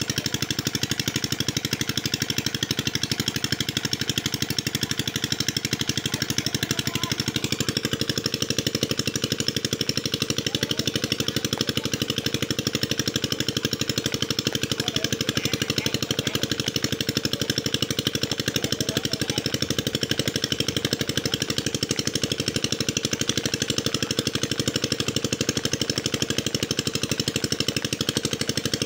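A small engine running steadily with a rapid, even chugging pulse and a steady hum.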